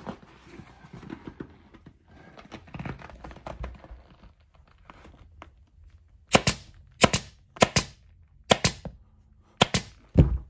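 Pneumatic upholstery stapler firing six sharp shots, about one a second, from about six seconds in, driving staples through vinyl into a plastic ATV seat pan. Before the shots, the vinyl cover is rustled as it is pulled and handled.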